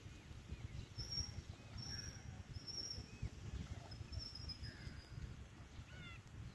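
Faint bird chirps and a few thin, high whistling notes over a low, uneven rumble of wind on the microphone.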